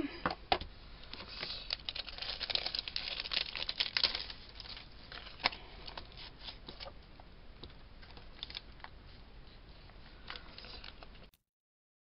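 Plastic packaging of a clear stamp set crinkling and crackling as it is handled and the clear stamps are pulled from their backing sheet, a run of small irregular clicks that thins out over time and cuts off near the end.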